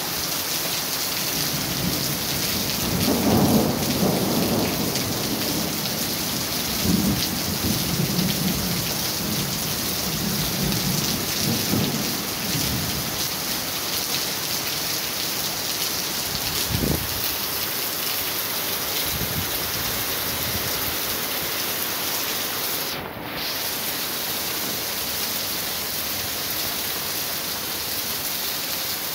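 Heavy rain pouring steadily onto a street during a thunderstorm, with thunder rumbling through the first half, loudest about three seconds in, and a short low thump of thunder near the middle.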